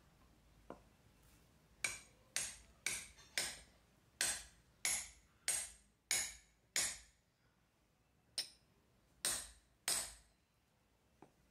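Steel hammer striking a steel drift on a gear hub about a dozen times, roughly two blows a second with a short pause before the last three, each a sharp metallic clank with a brief ring. The blows drive a small spur gear down into the bore of a larger spur gear.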